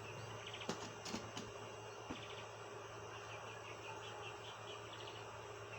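Quail giving faint, short trilling chirrs, several brief bursts a second or so apart: the odd sound it makes after laying an egg. A few faint clicks in the first second and a half.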